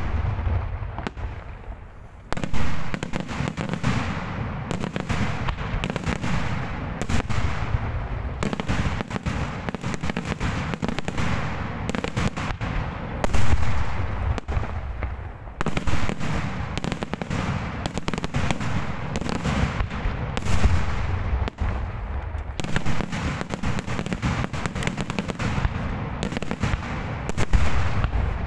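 Daytime fireworks: a rapid, near-continuous barrage of aerial shell and firecracker bangs. It eases off briefly about a second in, then starts again with a loud bang and keeps going.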